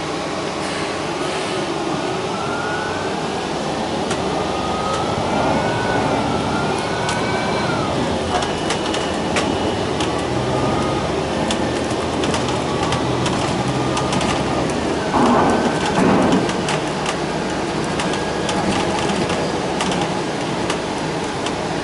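Inside a New Flyer XD60 articulated diesel bus under way: the engine and drivetrain run with a whine that rises in pitch as the bus gathers speed, over many small clicks and rattles from the cabin. A brief louder noise comes about fifteen seconds in.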